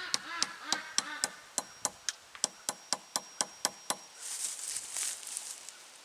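Hammer tapping a nail into a wooden fence rail at the post, about four light strikes a second, stopping about four seconds in. Rustling of dry leaves underfoot follows.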